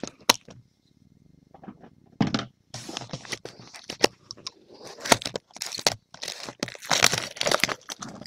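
Plastic shrink wrap on a sealed box of trading cards being torn open and peeled off, crinkling and crackling. A few sharp clicks come right at the start, and after a short pause the crinkling starts about two seconds in and gets busier toward the end.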